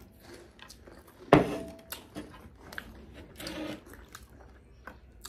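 Eating with chopsticks at a table: faint small clicks and chewing, with one sharp knock about a second in and a short muffled sound a little past halfway.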